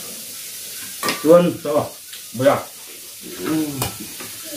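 Short bouts of a man's voice, about a second in and again past the middle, over a steady hiss.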